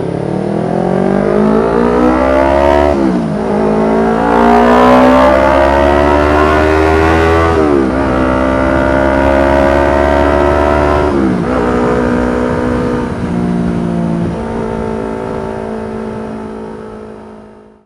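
Yamaha MT25's 249 cc parallel-twin engine accelerating hard through the gears: the pitch climbs, drops at each upshift about three, eight and eleven and a half seconds in, then holds at a steady cruise and fades out near the end.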